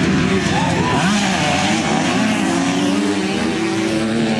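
Motocross dirt bike engines at high revs, the pitch dipping and rising about a second in, then running steadily.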